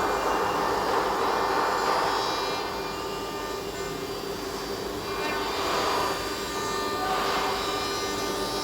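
Rotary CNC router running: a steady whine of several held pitches, with a rougher cutting noise that swells, eases off about three seconds in and swells again near the end as the cutter works the material.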